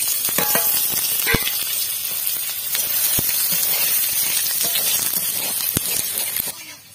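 Fresh paneer cubes sizzling in hot oil in a metal kadai, a steady hiss that starts as they go in and cuts off suddenly near the end. A metal spatula clicks and scrapes against the pan a few times as the cubes are turned.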